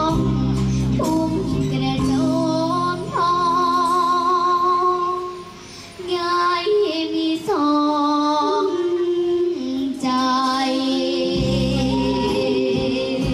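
Young girl singing a Thai luk thung song into a microphone over a backing track, holding long notes with vibrato.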